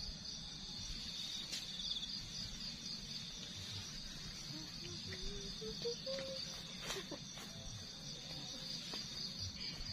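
Steady chorus of insects, a continuous high-pitched trill, with a few faint clicks.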